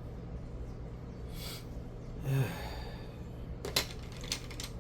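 A man's breathy exhale and a short low hum in the middle. Near the end come a few sharp clicks of plastic Lego pieces being handled. A ceiling fan hums steadily underneath.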